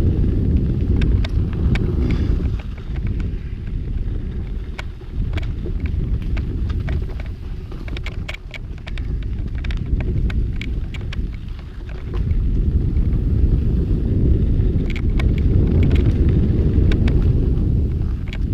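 Wind buffeting the microphone in a heavy, surging rumble, mixed with scattered clicks and rattles of a mountain bike rolling over rough trail.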